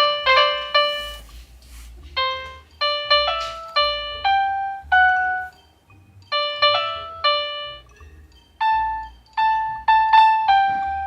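Toy piano played by hand: short runs of single notes in four phrases, each phrase ending on a longer held note, with brief pauses between them.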